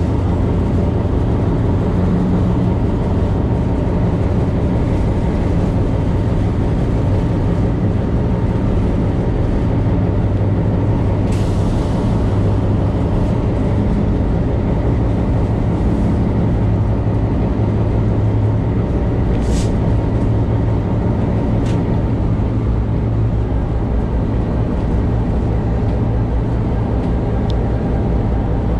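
Diesel locomotive engine running steadily, heard from inside the cab, with a deep, even drone. A few brief sharp sounds cut through it, about a third of the way in and twice more later.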